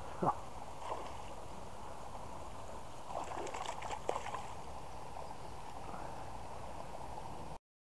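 Largemouth bass striking a surface lure and splashing, a burst of several quick splashes about three to four seconds in, over a steady outdoor background. A short sound falling quickly in pitch comes just after the start, and the sound cuts off abruptly near the end.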